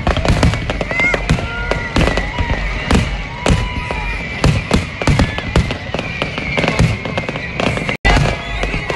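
Fireworks display: a dense, rapid run of bangs and crackling bursts, with brief high sliding tones over it. The sound cuts out for an instant near the end.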